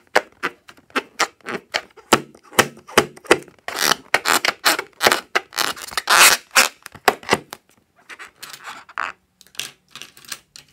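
Hands handling and rubbing an inflated latex balloon: an irregular run of short rubbing and tapping sounds, a few a second, thickest about halfway through and thinning out near the end.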